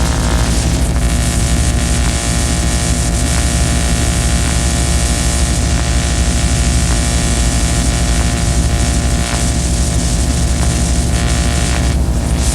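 Harsh noise music: a loud, unbroken wall of hiss over layered droning hums, holding steady without a beat or melody.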